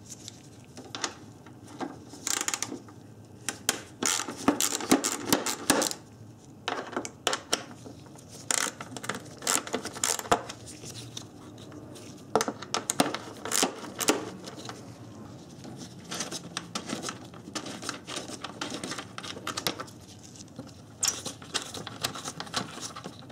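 Hand ratchet wrench clicking in quick bursts, with metal clinks, as the upper mounting bolts of a radiator fan shroud are loosened and removed.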